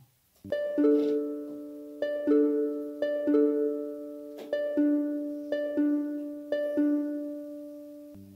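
Instrumental music between spoken verses: gentle plucked-string notes and chords, struck about once a second and left to ring out.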